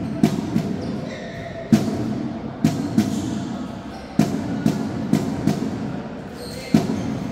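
Drum beats in a loose repeating rhythm, sharp strikes coming a few at a time about every two and a half seconds, over a steady background din.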